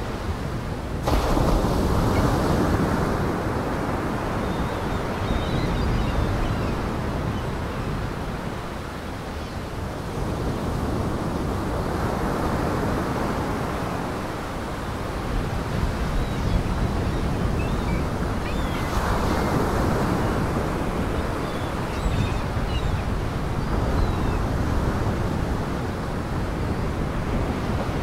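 Surf: waves breaking and washing up a beach, swelling louder every several seconds, with faint high chirps here and there.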